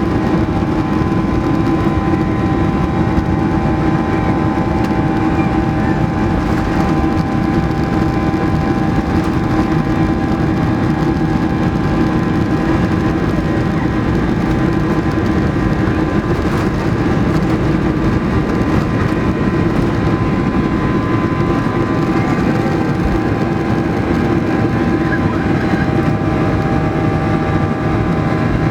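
Jet engines of a Boeing 737-800 (CFM56-7B turbofans) running steadily: an even drone with several steady whining tones, unchanging throughout.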